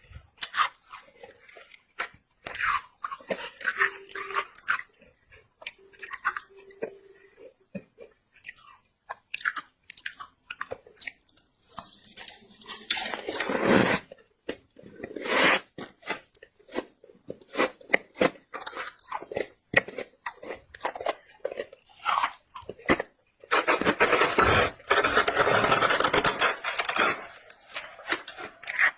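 Close-up crunching and chewing of squeaky freezer frost, bites and chews coming irregularly, with longer dense bouts about halfway through and again near the end.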